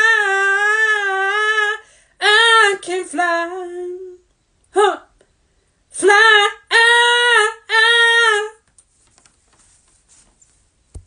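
A woman singing unaccompanied, holding a long note with vibrato, then a few short sung phrases that end about eight and a half seconds in.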